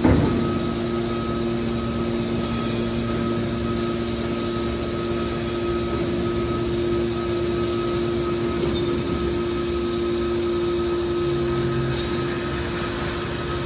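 Machinery running with a steady hum, several constant tones held throughout over a noisy rumble.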